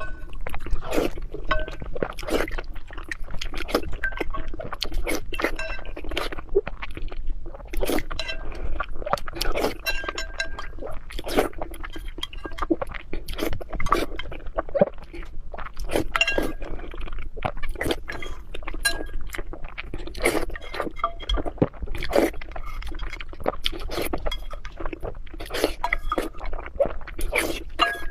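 Mukbang eating sounds of eggs being eaten: irregular clinks, crunches and clicks, with biting and chewing.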